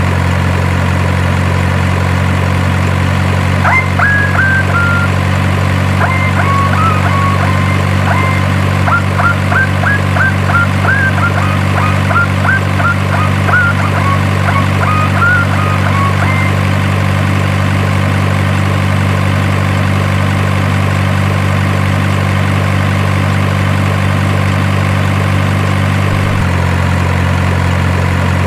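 Steady low idling drone of a truck engine sound, unchanging apart from a slight shift near the end. A run of short high chirps sits over it for several seconds in the first half.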